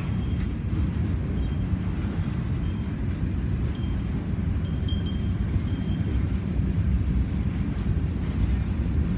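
Freight train passing with a steady low rumble, with faint short high squeals coming and going.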